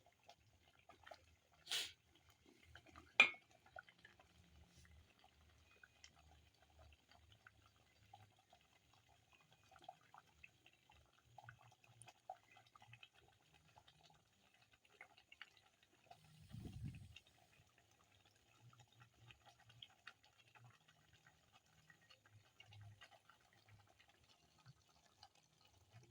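Chicken curry simmering in a covered pot: faint, steady bubbling and crackling, with two sharp clicks about two and three seconds in.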